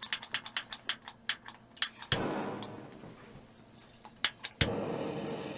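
Butane blow torch on a gas canister being worked and lit: a quick run of sharp clicks, then a gush of gas hiss about two seconds in that fades away. Near the end comes an igniter click, and the flame catches with a steady hiss.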